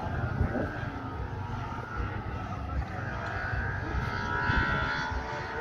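Steady outdoor rumble of a busy show ground, with an engine running somewhere in the distance and faint voices.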